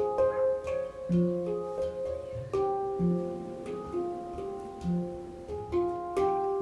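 Instrumental background music: a melody of plucked-string notes over a low bass note that comes in every second or two, with faint light ticks.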